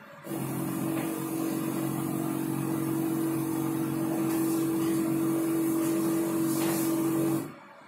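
A loud, steady machine drone with a hum and a hiss, starting abruptly and cutting off suddenly after about seven seconds.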